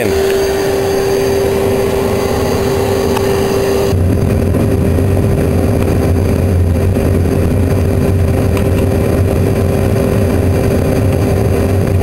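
1000-watt vacuum cleaner's blower running steadily with a high whine, forcing air into a drum furnace loaded with garden waste. About four seconds in, a deep low rumble joins it.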